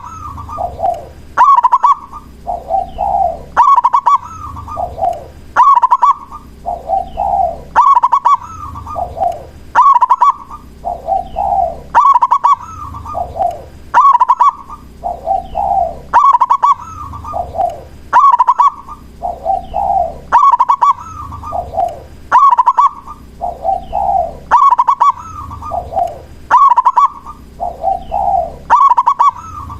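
Zebra dove (perkutut) singing its rhythmic cooing song, the same short phrase repeated about every two seconds without a break.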